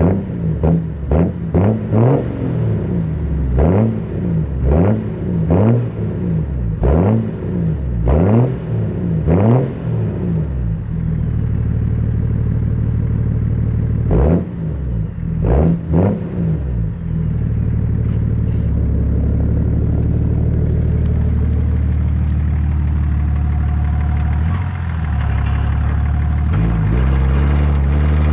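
BMW 730d E38's 3.0-litre inline-six diesel through a straight-piped dual exhaust, revved in quick blips about once a second, then settling to a steady deep drone with two more blips in the middle, and rising in pitch near the end.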